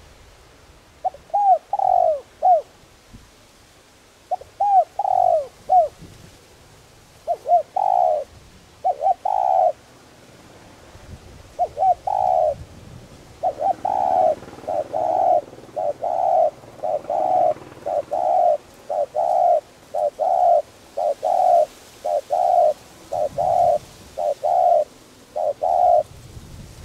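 Spotted dove cooing, its typical song. It gives spaced phrases of a few coos, then from about halfway a steady run of paired coos, about one pair a second, until shortly before the end.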